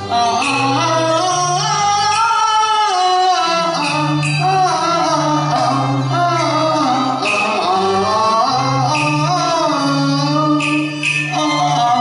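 A man singing a Cantonese opera song to live instrumental accompaniment: a wavering, ornamented sung melody over sustained low notes from the instruments.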